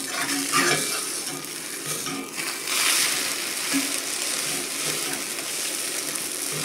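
Beaten eggs sizzling in a cast-iron skillet while a slotted metal spatula pushes and presses them into a thick round against the pan. The sizzle is steady and gets a little brighter about three seconds in.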